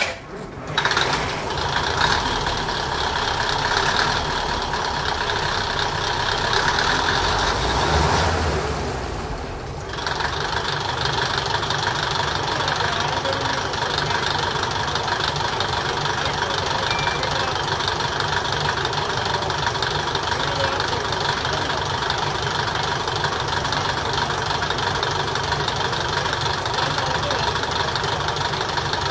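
A DMH17C eight-cylinder 17-litre railcar diesel engine starting about a second in, heard through an open floor hatch inside the railcar. It runs louder for several seconds, dips near ten seconds in, then settles to a steady rumbling idle.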